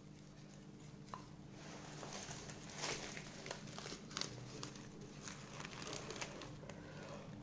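Dry birch bark crinkling and crackling in the hands as it is folded around a smouldering piece of charcloth, in irregular bursts with the sharpest crackles near the middle.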